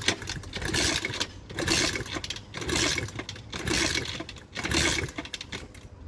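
Pit bike engine being kick-started over and over, about six kicks roughly a second apart, each turning the engine over briefly without it catching.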